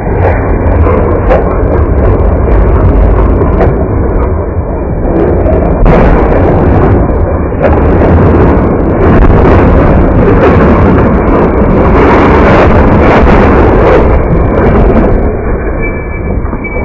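Runaway heavy truck rumbling and scraping along the roadside, with a rough, continuous roar and repeated crashing impacts from about six seconds in until near the end.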